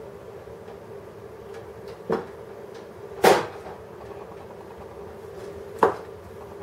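Three sharp knocks over a steady hum, the middle one loudest with a short ringing tail.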